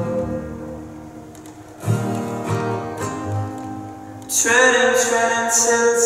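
Acoustic guitar strummed with upright bass, a fresh strum about two seconds in. A long sung note comes in about four and a half seconds in.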